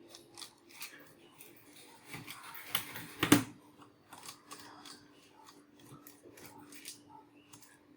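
Light clicks and knocks of hard plastic from a Dell laptop being handled and taken apart, with two louder clicks about three seconds in.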